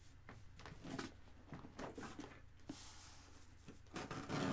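Faint scattered taps and scrapes of a cardboard box being handled and worked open with a throwing star, with a short scratchy scrape about two and a half seconds in and louder handling noise near the end.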